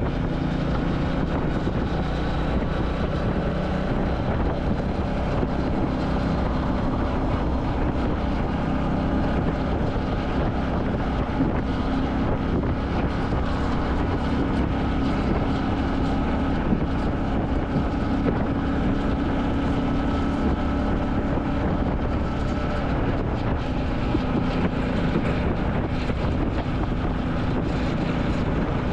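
Royal Enfield Classic 350's single-cylinder engine running steadily on the move, its pitch rising and falling a little with road speed. Wind noise on the microphone runs under it.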